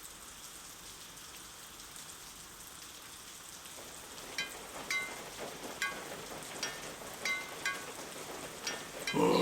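Rain falling steadily, with water drops plinking at an even pace from about four seconds in. Near the end a louder, short low vocal cry breaks in.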